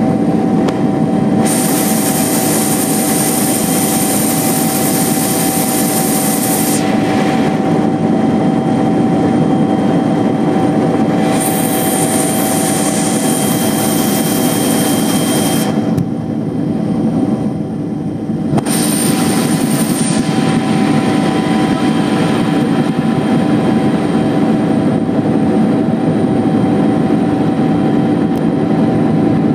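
Helicopter in flight heard from inside the cabin: a loud, steady drone of engine and rotor with steady humming tones. A higher hiss comes and goes several times over it.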